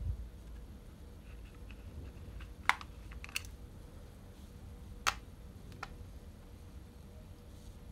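Small, sharp clicks and taps of a Phillips screwdriver and fingers working the keyboard screws on the plastic underside of a ThinkPad laptop, a handful of separate clicks spread over several seconds.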